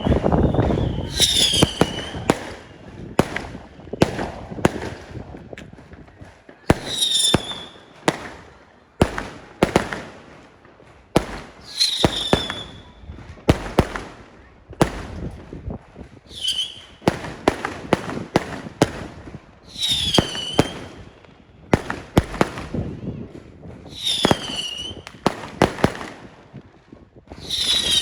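Fireworks going off: many sharp bangs and crackles, with a short high whistle falling in pitch roughly every four seconds.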